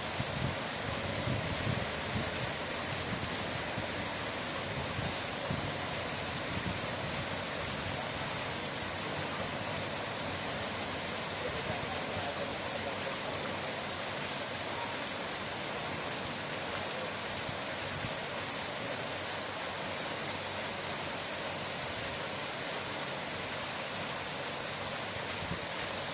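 Running water rushing steadily: an even, unbroken hiss with no splashes or pauses.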